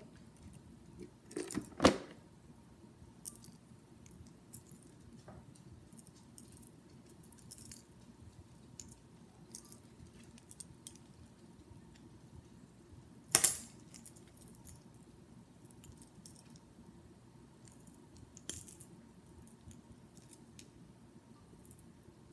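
Fishing lures and their metal treble hooks clinking and jingling as they are handled, mostly faint, with a few sharper clacks, the loudest about two seconds in and about halfway through.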